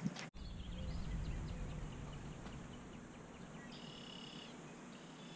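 Faint outdoor ambience: a low rumble in the first couple of seconds, a few faint high bird chirps, and one brief high call a little under four seconds in.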